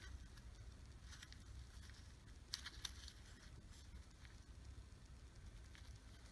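Near silence: a low steady hum with a few faint, short clicks, one about a second in and two close together around the middle.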